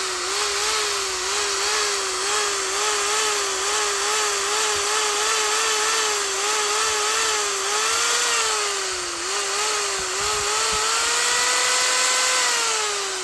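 750 W electric impact drill motor running, its whine wavering up and down about twice a second, then holding a steady higher pitch before it starts to spin down as the trigger is released near the end.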